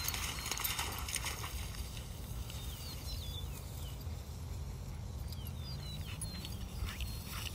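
Low, steady wind rumble on the microphone in an open meadow. Tall grass rustles in the first second or so, and a few faint bird chirps come in the middle.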